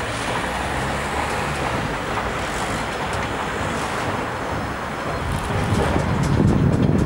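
City street ambience: steady road traffic noise. Wind buffets the microphone, growing louder over the last second or two.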